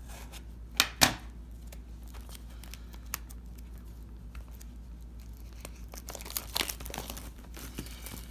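Shrink-wrap on a trading-card hobby box being cut and torn open, the plastic crinkling and tearing, with a couple of sharp clicks about a second in and denser crinkling near the end.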